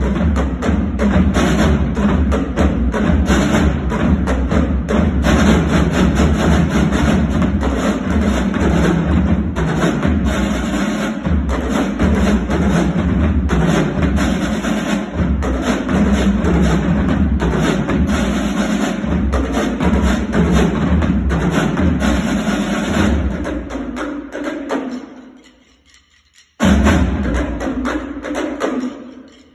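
Student drumline on marching snare drums playing a fast, loud cadence full of stick strokes. It dies away about 25 seconds in, then one last loud accented hit rings out and fades.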